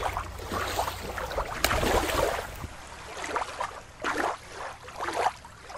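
Small waves lapping and splashing against a rocky shoreline. About two and a half seconds in, the sound cuts to a quieter recording with soft swishes of water every second or so.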